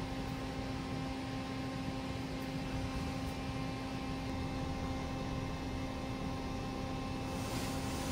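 Steady electrical hum at one constant pitch over a soft hiss, with a brief rustle near the end.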